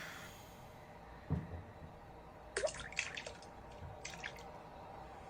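Faint sound effects from the anime soundtrack: a soft thud about a second in, then two short clusters of wet, crackling clicks.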